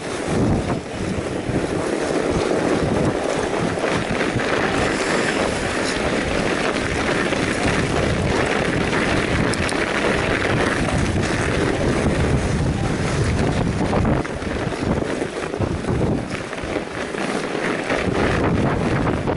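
Wind buffeting the microphone of a camera riding on a moving fat bike, with gusty surges and lulls, over the steady rolling hiss of fat tyres on a packed snow trail. A few light clicks or rattles from the bike come through about halfway.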